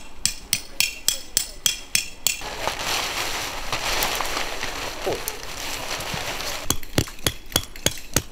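A tent stake being hammered into snow: a run of quick sharp taps, then about four seconds of tent fabric rustling as a fly is pulled over the frame, then hammer strikes on a stake about three a second from near the end.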